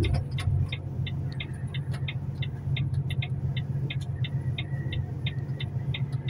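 Truck engine running with a steady low rumble, and a string of short high pips repeating about three times a second over it.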